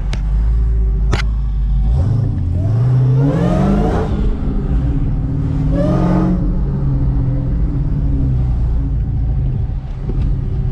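Dodge SRT Hellcat's supercharged V8 revved hard for a burnout. The pitch climbs steeply about two seconds in and surges again around six seconds, holds high for a few seconds, then drops near the end.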